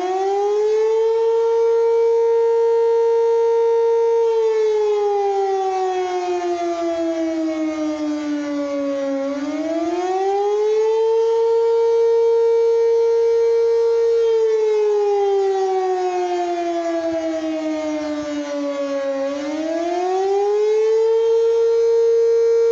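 Civil defense warning siren sounding its wail during a routine noon test. The pitch climbs, holds high for a few seconds, then slides slowly down before climbing again, in a cycle of about ten seconds.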